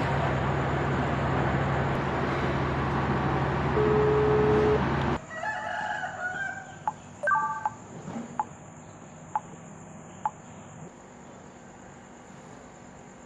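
Loud, steady outdoor street noise with a low hum that cuts off abruptly about five seconds in, giving way to much quieter ambience with a few short pitched calls and several sharp clicks.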